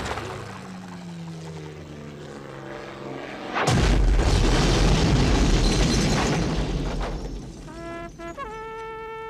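Cartoon explosion: a slowly falling tone, then a sudden deep boom about three and a half seconds in that rumbles for a few seconds and fades. Short brass notes follow near the end.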